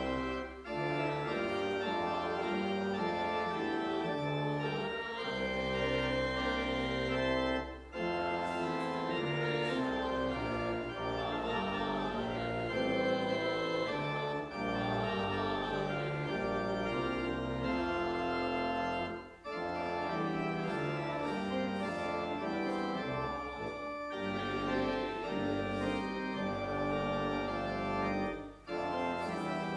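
Organ music: sustained chords played in phrases, with a few short breaks between phrases.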